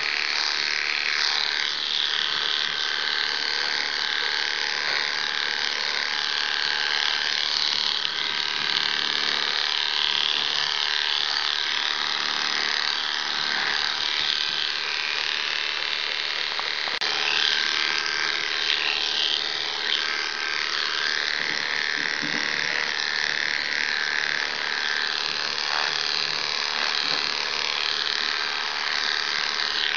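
Electric dog grooming clippers running steadily with a constant motor hum as the blades cut through a West Highland White Terrier's wet coat.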